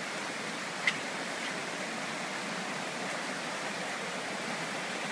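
Shallow river rushing over rocks in small rapids: a steady wash of water noise. One brief click about a second in.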